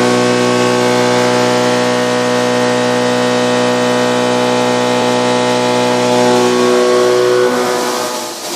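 Haas VF1 CNC mill's endmill cutting C45 carbon steel under flood coolant: a loud, steady machining tone of several even pitches with a hiss of coolant and chips over it. The tone thins out and drops briefly near the end.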